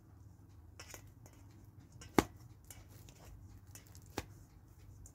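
A fork mashing banana slices in a stainless steel bowl: soft scraping and squashing, with three sharp clinks of the fork on the steel, the loudest just after two seconds in.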